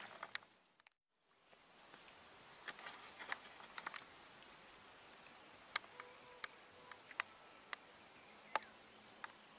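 Steady high-pitched insect chorus over swampy grassland, with a few sharp faint clicks scattered through it. The sound cuts out briefly about a second in, then returns.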